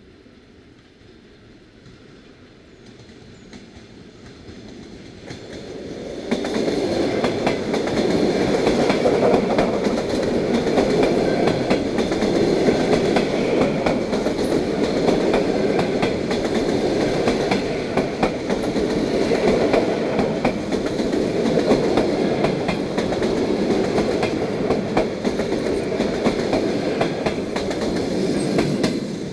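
ED4M electric multiple unit running past close by. It grows louder over the first few seconds, jumps in loudness about six seconds in, and then holds a steady run of wheel-on-rail noise with many quick clicks as the cars go by. It drops off just at the end.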